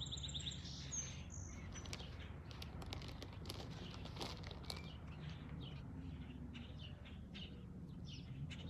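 Small birds chirping, with a quick high trill at the start, over a steady low background hum and scattered faint ticks.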